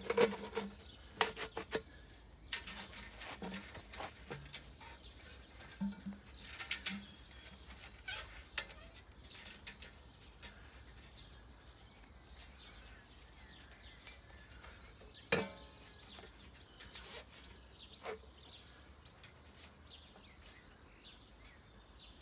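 Flexible aluminium stove-pipe elbow being twisted and pushed onto the flue collar of a small rusty steel wood stove: irregular metal clicks and scrapes, most of them in the first several seconds, with a sharp click about fifteen seconds in. Birds chirp in the background.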